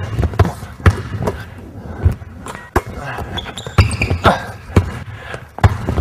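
Basketball dribbled hard on a hardwood court in an uneven run of bounces as a crossover move is made against a defender, with a short sneaker squeak about four seconds in.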